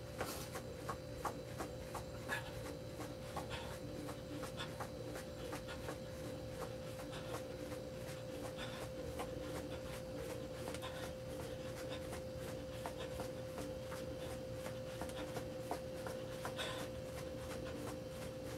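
Light, irregular footfalls on the floor from exercising on the spot, faint taps over a steady high hum.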